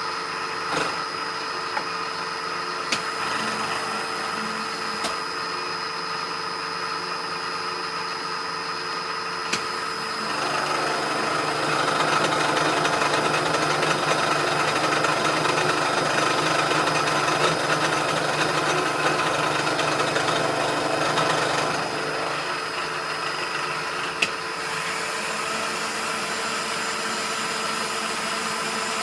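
Milling machine spindle running with a 2-inch carbide-insert face mill. From about a third of the way in, it gets louder and rougher for around eleven seconds as the cutter takes a 15-thousandths pass across a steel block with cutting oil, then drops back to the steady whine of the spindle running free.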